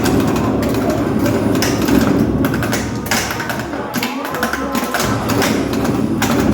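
Pinball machine in play: flippers and solenoids clacking and thumping over the game's electronic sounds.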